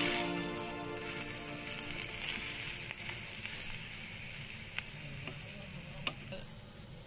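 Food sizzling in hot oil in a pan as it is stir-fried, with a few sharp taps of the spatula in the second half. The sizzle slowly dies down.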